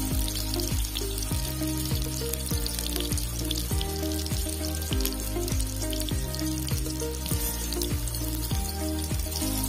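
Potato chunks sizzling and crackling in hot oil in an iron wok, over background music with a steady beat.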